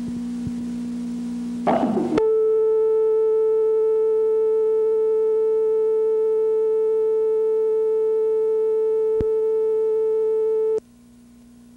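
Videotape line-up test tone with the production slate. A steady low tone breaks into a short crackle about two seconds in and switches to a higher steady tone. The higher tone holds for about nine seconds, with a single click near its end, then cuts off suddenly, leaving a faint low hum.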